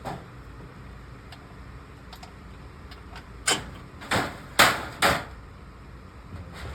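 Four sharp knocks about half a second apart, from a wrench being worked against a stuck oil drain plug to break it free.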